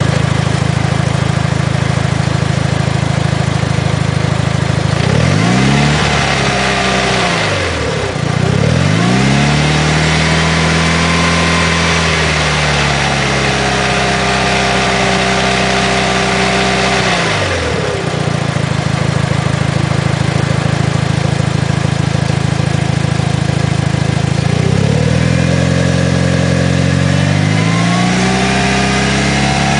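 Mitsubishi Lancer Evolution IX's turbocharged four-cylinder engine idling and being revved several times, falling back to idle between, with a rattle that is heard best as the revs die down. The rattle comes only with the clutch engaged and is gone once the clutch is pressed in, about two-thirds of the way through; the owner suspects a failing throw-out bearing.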